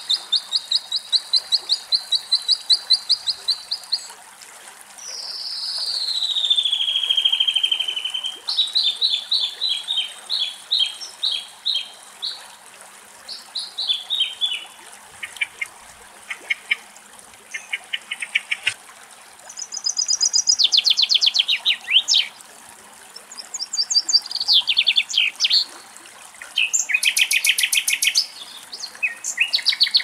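Common nightingale singing a varied song of rapid repeated notes and trills in separate phrases, one of them a long whistle sliding down in pitch about five seconds in.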